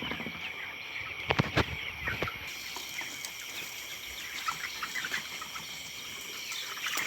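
A flock of broiler chickens calling, many short high peeps overlapping, with a few sharp knocks between about one and two seconds in.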